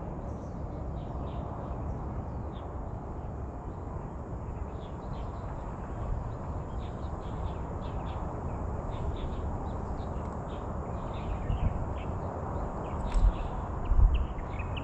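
Birds chirping in short, scattered calls over a steady low rush of outdoor noise, with a few dull thumps near the end.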